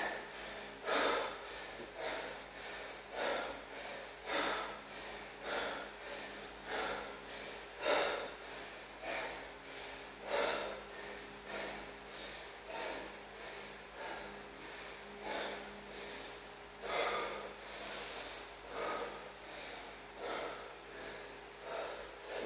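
A man breathing hard and fast, out of breath from a set of burpees, with a loud rasping breath about once a second.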